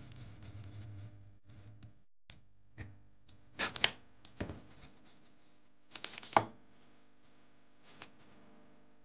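Small parts and hand tools being handled on a workbench: a faint steady hum at first, then a scattering of light clicks and knocks, the loudest around four and six seconds in.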